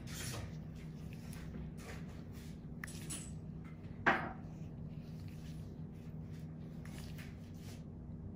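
A steady low hum with soft scattered rustles and light clicks of close-up handling, and one sharper click about four seconds in.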